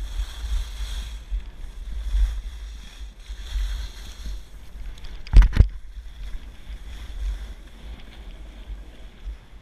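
Wind buffeting an action camera's microphone during a downhill ski run, a gusty low rumble, over the hiss of skis sliding on packed snow. A single sharp knock about five and a half seconds in is the loudest sound.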